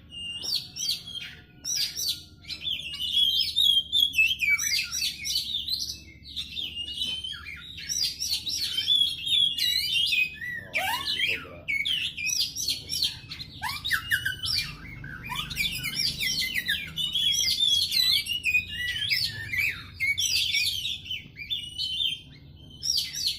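Oriental magpie-robin singing a continuous, rapid song of varied whistles, chirps and trills, with a few lower falling notes about ten to fourteen seconds in.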